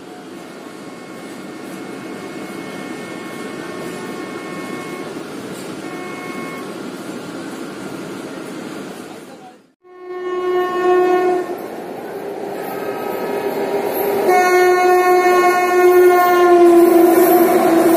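Electric locomotive horn of an approaching express: a short blast just after a brief drop-out about ten seconds in, then a long blast from about fourteen seconds. Under both, the rumble of the oncoming train grows steadily louder. Before the drop-out there is a steadier, quieter rumble with faint horn tones.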